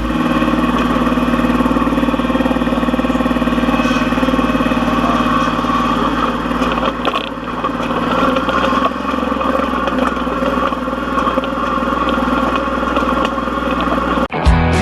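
Compact tractor's diesel engine running steadily, its pitch shifting slightly around the middle as the load changes.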